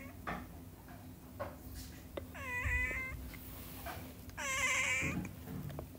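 Tabby kitten meowing twice, about two seconds apart, each meow lasting under a second.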